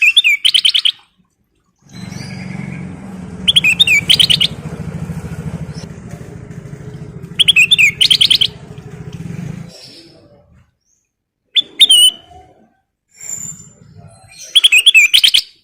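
Kutilang emas bulbul singing short, loud phrases of rapid notes, five phrases a few seconds apart. A low engine drone starts about two seconds in and stops near the ten-second mark.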